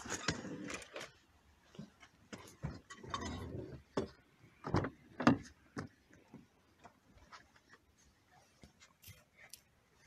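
Handling noise from a phone being carried and moved: scattered clicks, knocks and short rustles, with two sharper knocks about five seconds in.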